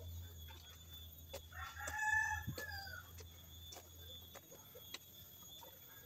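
A rooster crows once, a single call of just over a second that bends down in pitch at its end, about a second and a half in. Faint scattered clicks and a low steady rumble lie underneath.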